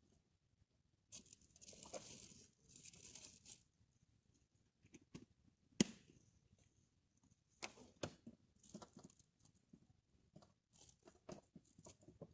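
Motorcycle helmet and riding gear being handled: two short tearing rasps like Velcro, a sharp click about halfway, then a scatter of light clicks and knocks.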